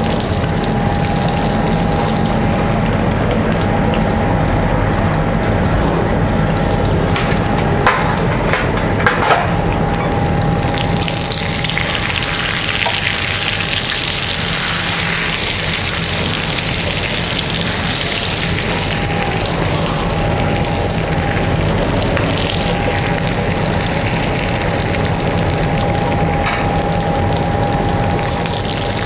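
Pieces of milk-fed lamb sizzling in foaming brown butter in a frying pan, the sizzle swelling in the middle, over a steady kitchen hum with a faint high whine. A few sharp metal clinks come about eight to nine seconds in.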